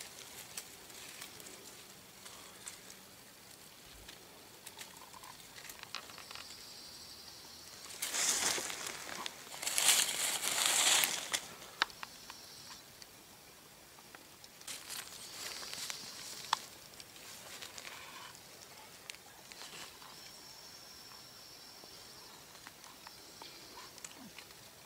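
Dry fallen leaves and twigs rustling and crackling as someone moves through the leaf litter, with scattered small snaps and two louder bouts of rustling about eight and ten seconds in.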